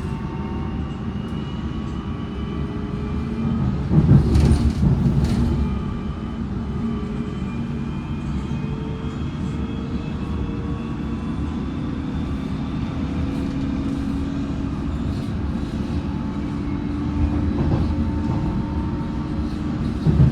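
Metropolitan Line S8 Stock train running, heard from inside the carriage: steady rumble with a faint traction-motor whine, its tones slowly shifting in pitch. A louder stretch of clattering comes about four seconds in and lasts over a second.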